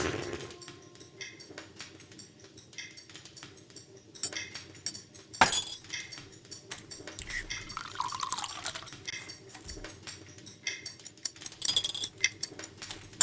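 Dishes and cutlery clinking, with scattered light taps and one sharp knock about five seconds in.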